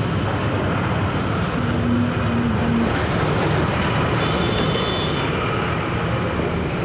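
Steady rumble of road traffic and workshop background noise, with a few faint clicks from hand tools.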